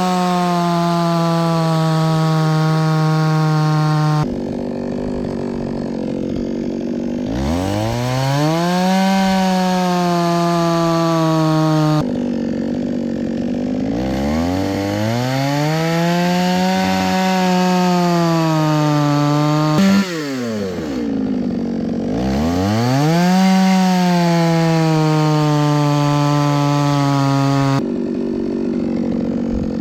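Chainsaw bucking logs into firewood rounds: the two-stroke engine revs up to full throttle and holds there for several seconds through each cut, then drops back, about four times.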